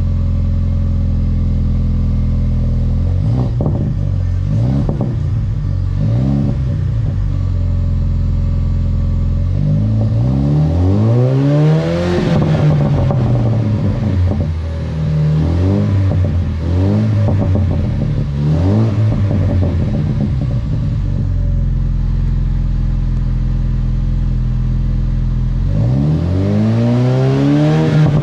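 Ford Bronco's 2.3-litre EcoBoost turbocharged four-cylinder idling steadily through its exhaust and being revved in place: three quick blips, a longer rev that climbs and falls back around the middle, three more quick blips, then a rev climbing near the end.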